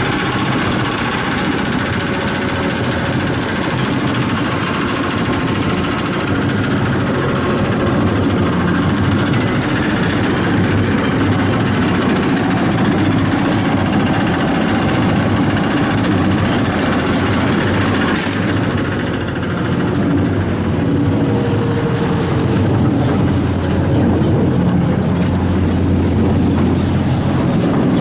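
Tractor engine running steadily, driving the machinery of a Challenger LB34B 3x4 large square hay baler.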